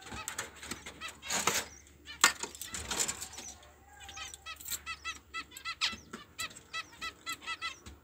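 Aviary cage birds chirping, short repeated calls about four a second from about four seconds in. Before that come a few clinks and knocks as the feed bowls are handled, the loudest about two seconds in.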